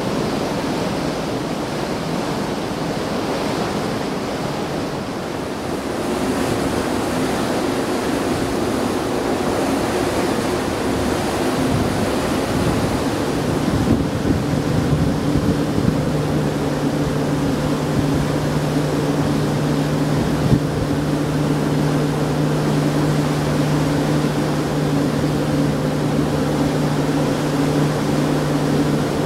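Steady rush of wind and sea water on board the coastal ferry Sarfaq Ittuk, with the ship's engine hum coming up about six seconds in and growing stronger from about thirteen seconds, a steady low drone. A few brief knocks midway.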